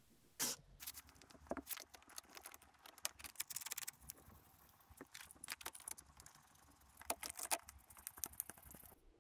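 Scattered sharp clicks and knocks, some in quick clusters, of metal clamps being fitted and tightened on a wooden sand-casting flask.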